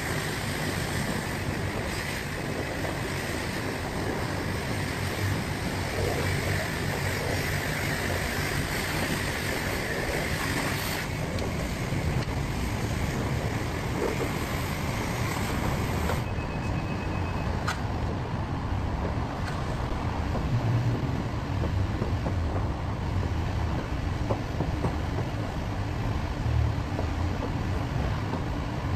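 A self-serve car wash's high-pressure wand sprays water onto a car's bodywork with a steady hiss, which stops about eleven seconds in. After that comes the softer sound of a foam brush being worked over the wet panels, over a steady low rumble.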